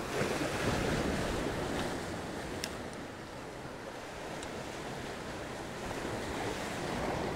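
Surf breaking and washing over the boulders of a rock jetty, a steady rush that is loudest in the first couple of seconds.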